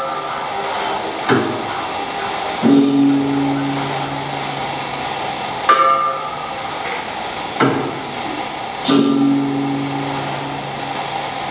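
Gong music for the sumayau dance, played slowly: separate strikes a second or two apart, the deep gongs' low notes ringing on for a second or more, with a higher, shorter ringing note from a smaller gong. The pattern repeats about every six seconds.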